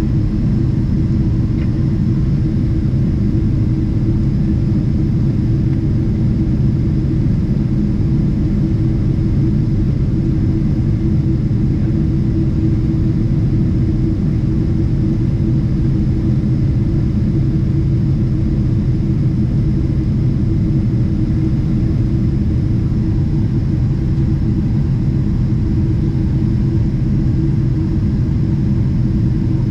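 Steady cabin drone of a Boeing 777-300ER in its climb, heard from inside the economy cabin: a loud, even rumble of the GE90 engines and rushing air, with a steady low hum running through it.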